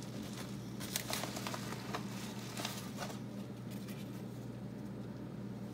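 Scattered light clicks and rustles of a flashlight package being handled and opened, dying away after about three seconds, over a steady low hum.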